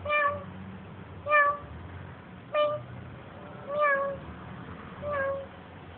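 Domestic cat meowing five times, short calls spaced about a second and a quarter apart.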